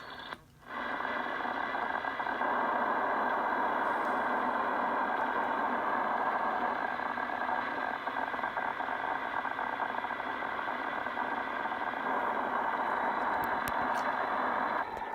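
CB radio receiver on 27.155 MHz (channel 16) putting out an unidentified signal through its speaker: a dense, rapid, steady crackle of clicks, like a demented Geiger counter. The owner finds it is not bleed-over from other channels. It drops out briefly about half a second in.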